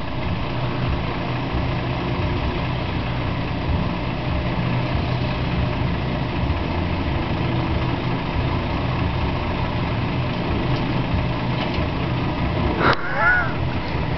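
Truck engine idling steadily with a low rumble. About 13 seconds in comes a sharp click, followed by a brief wavering higher-pitched sound.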